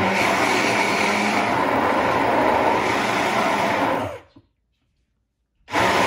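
Small battery-powered handheld milk frother whirring steadily as its wand churns a thick strawberry-banana smoothie in a plastic cup. It stops about four seconds in and starts again after a second and a half.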